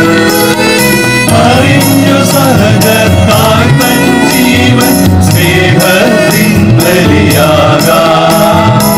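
Background music: a song with a singing voice over a steady beat of jingling percussion.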